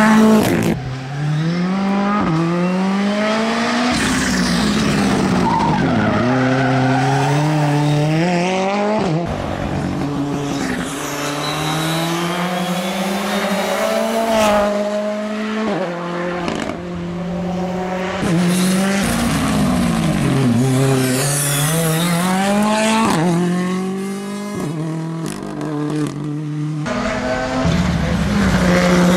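Ford Fiesta R5 rally car's turbocharged four-cylinder engine revving hard as it passes at speed on a tarmac stage, its pitch climbing through each gear and dropping sharply at shifts and braking, over and over across several passes.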